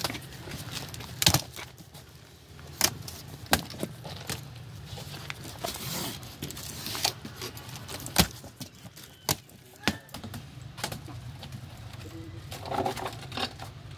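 Scattered sharp knocks and clicks with stretches of rustling and scraping, from firework cake boxes being handled and their paper wrapping slit open with knives.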